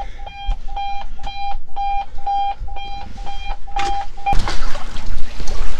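An electronic alarm beeping a steady tone, about two beeps a second, which is a false alarm. It stops suddenly after about four seconds, and wind and water noise follow.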